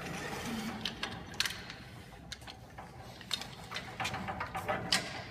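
Irregular clicks and light rattles from a 4:1 mechanical-advantage rope haul system (Haulsafe) on a rescue tripod: rope running through the pulleys and the self-grabbing brake as a person is hauled up out of a confined space.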